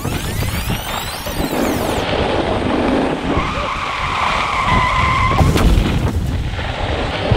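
Skis scraping and hissing over packed snow while wind rumbles on the camera microphone. A steady high tone sounds for about two seconds in the middle.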